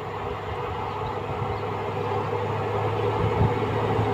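LTG Cargo diesel locomotive 15D-110 approaching at the head of a freight train, its engine running with a steady low hum that grows louder as it nears.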